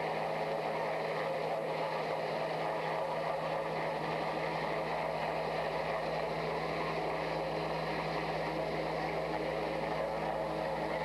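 Steady engine and rotor drone of a hovering Sikorsky SH-3 Sea King twin-turboshaft helicopter, even in level, with a constant low hum under it.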